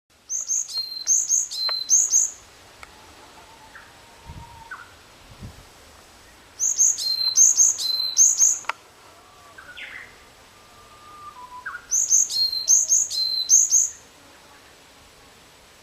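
Varied tit singing: three phrases of a few repeated high, clear notes, each about two seconds long, with several seconds between them. Fainter, lower bird calls sound in the gaps.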